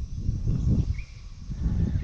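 Footsteps on garden soil and handling rumble from the person filming as he walks around the corn bed: an uneven series of soft low thumps.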